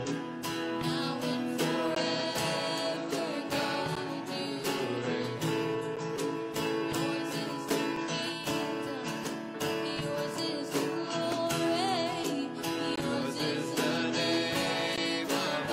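Live worship band playing: strummed acoustic guitar over drums and keyboard, with voices singing.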